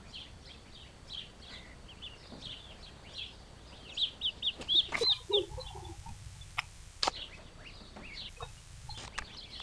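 Ducklings peeping: a steady scatter of short, high peeps that becomes a fast, louder run about four seconds in. A few sharp clicks come through near the middle.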